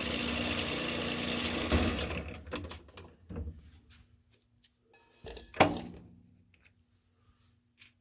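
A benchtop mill-drill running for center drilling, switched off about two seconds in and winding down. A few metal clicks and clanks follow, the loudest about halfway through.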